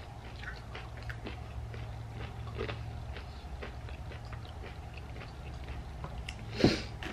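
Faint mouth sounds, soft scattered lip and tongue clicks, over a low steady room hum, with one short louder breath about six and a half seconds in.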